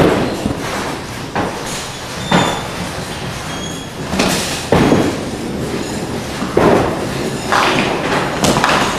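A duckpin bowling ball rolling down a wooden lane with a steady rumble, then a sharp clatter of pins a little under five seconds in. More knocks from balls and pins ring through the alley, and the ball rumbles back along the return track near the end.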